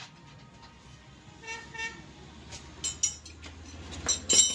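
A vehicle horn gives two short beeps, followed near the end by sharp metallic clinks and knocks.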